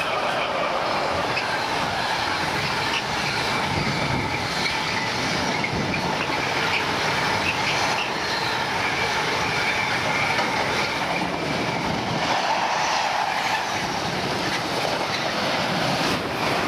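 Freight train of container wagons passing at speed: the steady, loud rush of wheels on the rails, with a thin, high wheel squeal around the middle. Near the end, a passenger train passing.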